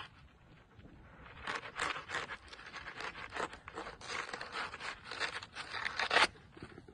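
Fillet knife scraping along a trout fillet as the skin is cut free, a quick run of short rasping strokes that stops abruptly a little after six seconds in.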